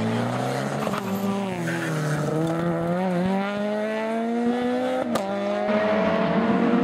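Mitsubishi Lancer rally car's engine accelerating hard out of a loose-surface corner, its pitch climbing steadily through a gear. A sharp crack comes at a gear change about five seconds in, and the pitch then starts climbing again.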